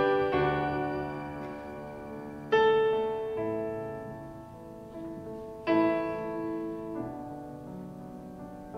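Stage piano on an electric keyboard playing slow sustained chords, a new chord struck every three seconds or so and each left to ring out and fade.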